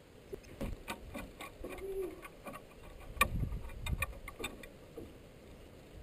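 Irregular clicks and knocks as a dog pushes through a dog door in a clear plastic blind: claws on timber deck boards and the door knocking, loudest a little after three seconds in.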